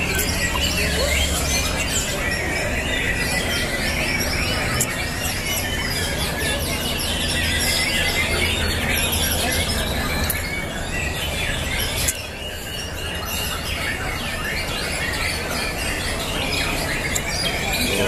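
Many caged songbirds singing at once in competition: a dense, continuous tangle of overlapping chirps, trills and whistles, over a steady low hum.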